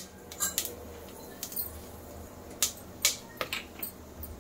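Whole spices (bay leaves, cloves, cardamom, peppercorns) crackling in hot ghee in an aluminium pot: scattered sharp pops, about seven, at irregular intervals.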